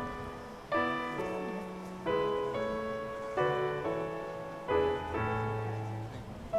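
Slow piano music: a chord struck about every second and a half, each left to ring and fade, with a low bass note near the end.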